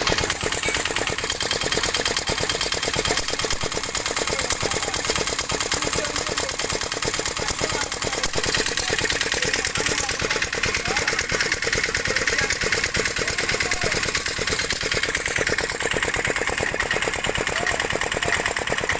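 Engine running steadily at idle with a fast, even beat, being test-run after a repair.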